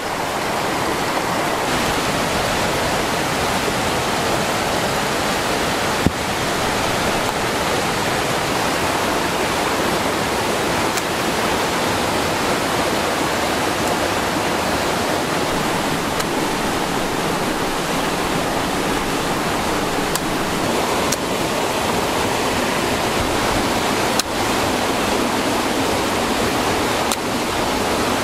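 Fast, flood-swollen muddy river rushing steadily over rocks.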